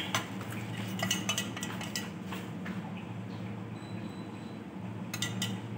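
A metal spoon clinking on dishware as sauce is spooned over plated beef tenderloin. There are a few light, sharp clicks about a second in and again near the end, over a steady low hum.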